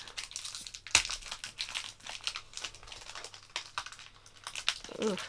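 Foil Pokémon booster pack wrapper crinkling and crackling as fingers work at tearing it open, with one sharp crack about a second in.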